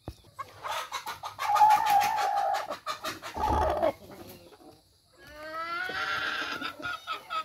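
Chickens calling: a long, rough call of about three seconds, then after a short pause a second drawn-out call that rises in pitch near the end.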